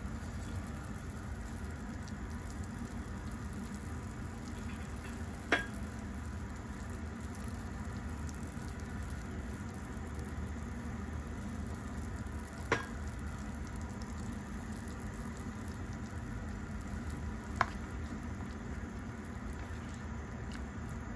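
Pork and corn soup bubbling steadily at a simmer in a pot, with three sharp clinks spread through it as a ladle touches the pot.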